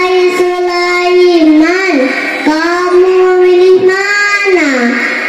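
A young girl singing solo into a microphone over a PA system: long held notes with ornamented bends and glides between them.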